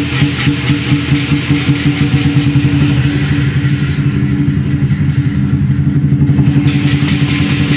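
Large lion dance drum beaten in a fast, dense roll, with hand cymbals clashing along. The cymbals drop back for a couple of seconds past the middle, then come in again near the end.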